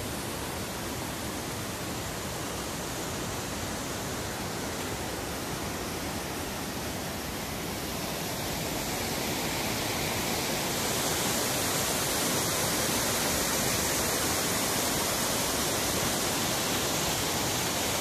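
Rocky mountain stream rushing over boulders and small cascades, a steady rush of water that grows somewhat louder about halfway through.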